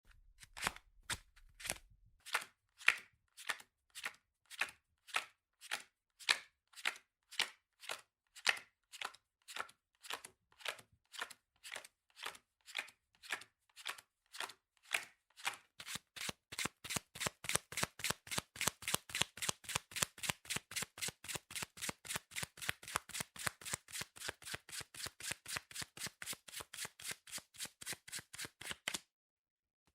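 Playing cards handled in a long run of short, crisp snaps, at about two or three a second at first, then faster and denser from about halfway, stopping shortly before the end.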